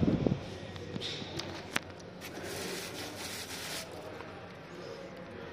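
Handling noises at the open door of a new pickup's cab: a low clunk right at the start, a few sharp clicks, then about a second and a half of rustling from the plastic covers still wrapped over the seats.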